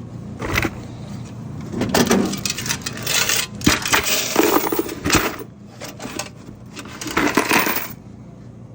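Coins collected from vending machines clattering and jingling in several bursts as they are handled and poured, stopping about eight seconds in.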